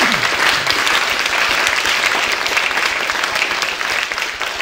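Audience applause: a roomful of people clapping together, steady throughout.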